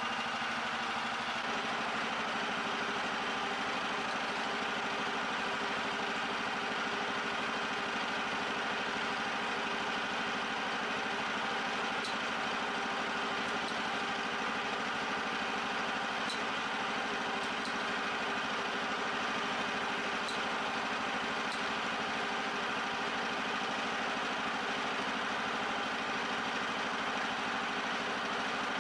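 Small air-cooled recoil-start petrol engine of a homemade garden tractor, just started, running steadily at idle. A few faint light ticks come through midway.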